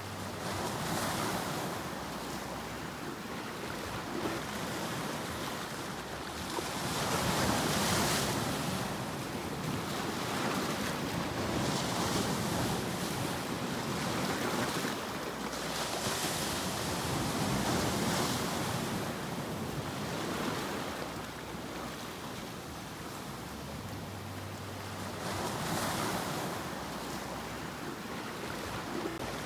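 Ocean waves breaking on the shore, the surf noise swelling and easing in repeated surges every few seconds, with some wind on the microphone.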